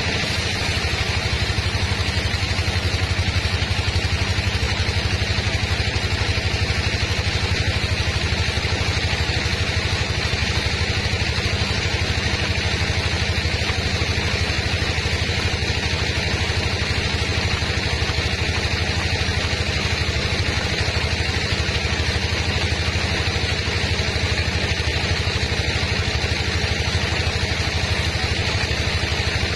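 Sawmill machinery running: an engine's steady, unchanging hum with a hiss over it, with no rise or fall in speed.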